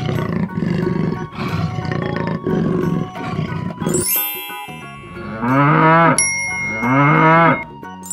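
A cartoon big cat growls and roars over light background music for the first half. A rising chime sweeps by about four seconds in. Then come two cartoon cow moos that rise and fall, with a bell-like ringing tone under the second.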